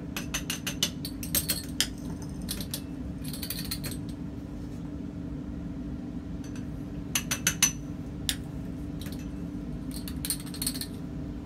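Small glassware clinks and taps in short bursts as solid reagents are transferred from a watch glass into a glass test tube, over a steady low hum.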